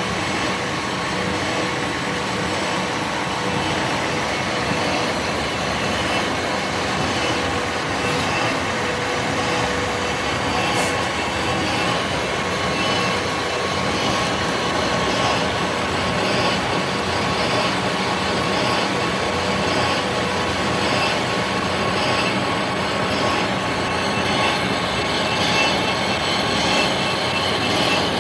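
Metal lathe running under automatic feed: a steady mechanical drone from the spindle and feed gearing, with a constant whine held throughout.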